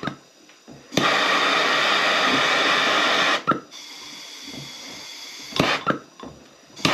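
Handheld trigger-start gas torch firing in bursts: a loud steady rush of gas for about two and a half seconds, then a softer hiss, a few sharp clicks, and the loud rush again at the very end.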